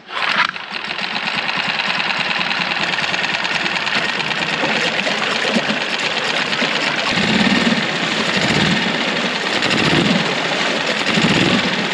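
Outboard motor running steadily with an even mechanical clatter.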